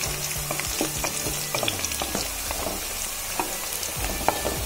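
Chopped onions and long green chillies sizzling in hot oil, stirred with a wooden spatula: a steady frying hiss with many small crackles.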